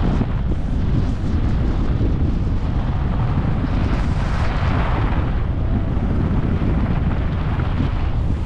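Wind rushing over a GoPro's microphone while skiing downhill, a steady low rumble, with the hiss of skis on snow swelling about halfway through.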